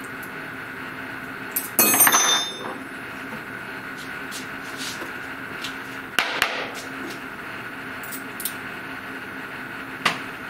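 Steel spanners and a collet nut clinking and clattering against the metal bed of a CNC router during a tool change: a loud ringing clatter about two seconds in, another about six seconds in, and a small click near the end, over a steady background hum.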